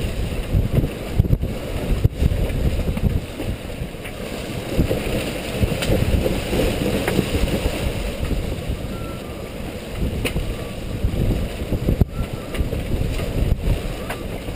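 Strong wind buffeting the microphone aboard a sailboat under sail, with the rush of water along the hull. The rumble rises and falls unevenly as the gusts come and go.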